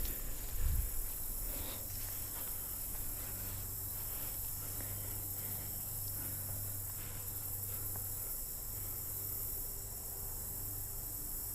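Quiet woodland ambience: a steady high-pitched insect hiss, with a few faint rustles and handling clicks in the first couple of seconds.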